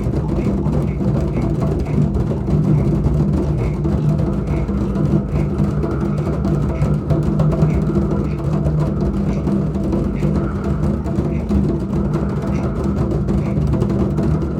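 Many drums played together by a group of children in a drum 'rainstorm': a dense, continuous rumble of rubbing, tapping and rolling on the drum heads with no pauses, imitating heavy rain.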